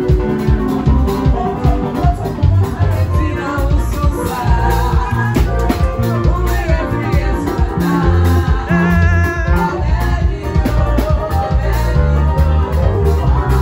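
Live band music amplified through a PA: a woman singing into a microphone over electric guitar, heavy bass and a steady dance beat.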